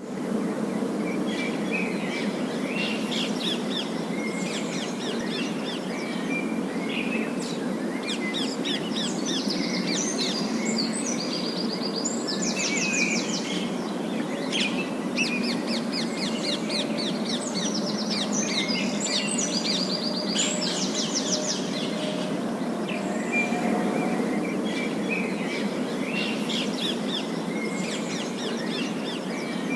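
Parakeets chirping and chattering, with runs of fast trilled calls, over a steady low background noise.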